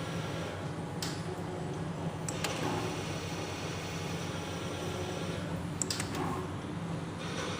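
A few sharp clicks of a push button on a CNC machine being pressed, over a steady machine hum.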